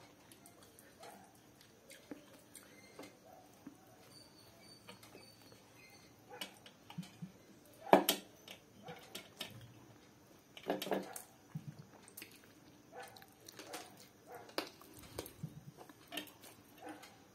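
Close-miked eating sounds of a person eating chicken curry with roti and rice by hand: irregular short chewing clicks and lip smacks, loudest about eight seconds in and again around eleven seconds.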